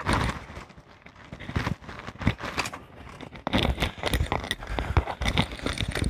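Scattered clicks, knocks and scraping from hands working on an e-bike's front wheel and disc brake. The sounds get busier from about halfway in.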